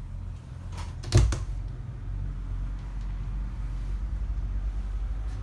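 A single sharp knock, like a door or cupboard being bumped, about a second in, over a steady low hum; a fainter click comes near the end.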